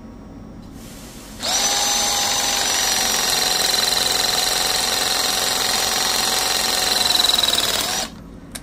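REMS battery press tool running a press cycle, its jaws crimping a copper press-fit tee onto the pipe. The motor starts about a second and a half in, whines steadily for about six and a half seconds, swells slightly near the end, then cuts off suddenly as the press completes.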